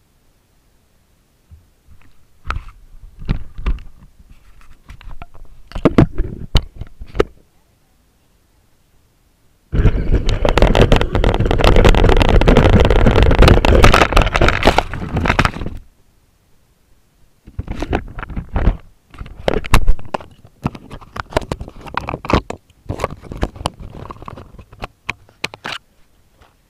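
Radio-controlled truck driving over rough ground: irregular bursts of rumbling and scraping with sharp knocks, loudest for about six seconds in the middle.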